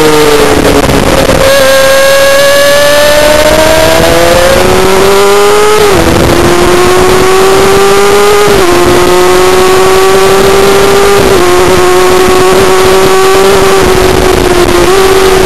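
Race motorcycle engine heard onboard under hard acceleration out of a corner. Its pitch climbs and drops sharply three times as it is shifted up through the gears, over a steady rush of wind on the microphone.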